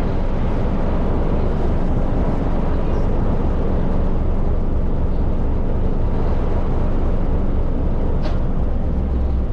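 Passenger ferry's engines running with a steady, loud low rumble and dense noise.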